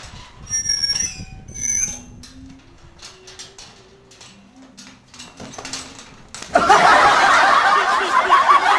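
Two short high squeaks near the start, then a sudden loud burst of crowd laughter about two-thirds of the way in that carries on.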